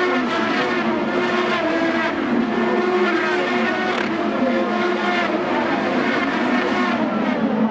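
IndyCar race cars' 2.2-litre twin-turbo V6 engines passing at speed on a road course, cars going by in turn. The engine pitch climbs and drops again and again through gear changes.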